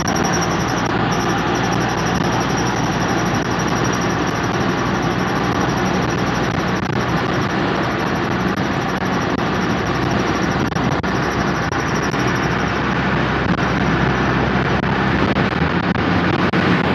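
Audi A4 B7 under way: steady road and running noise with a thin, high-pitched whine that fades out near the end, the brake noise the car is being recorded for.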